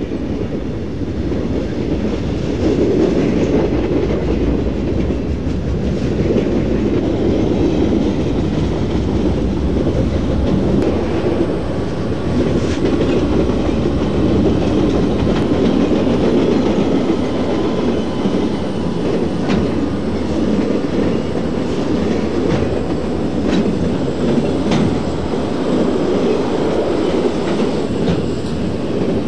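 Freight cars of a passing train rolling by in a steady rumble, the wheels clicking over rail joints.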